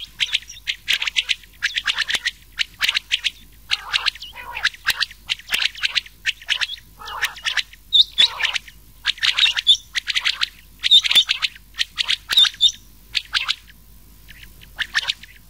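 Rain quail and common quail calling, from a mixed quail-call recording used as a hunting lure. The calls are rapid runs of short, sharp notes repeated over and over with brief gaps, thinning out near the end.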